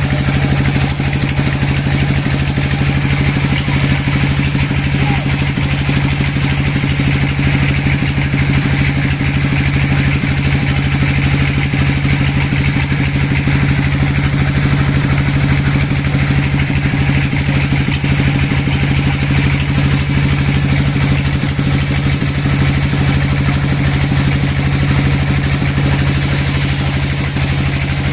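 Sawmill machinery running steadily, with an engine's even low hum and no change in speed.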